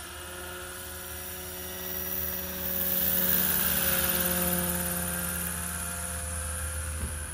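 Roban EC145 800-size scale RC model helicopter flying past: the steady whine of its rotors and drive grows louder about two seconds in, peaks as it passes close, then eases off and dips slightly in pitch as it moves away.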